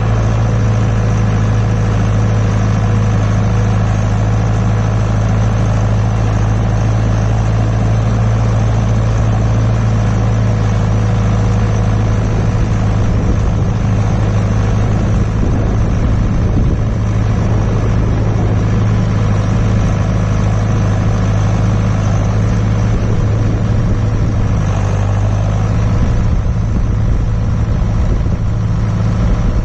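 John Deere 6400 tractor's diesel engine running at a steady speed, a constant low drone with no change in pitch.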